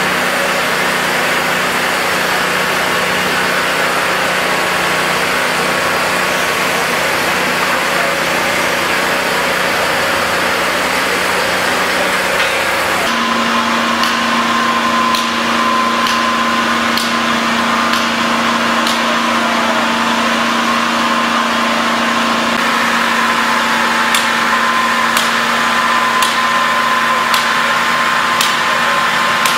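Heavy machinery engine running steadily. About halfway through the sound shifts and a steadier low hum comes in. From then on, sharp ticks come about once a second.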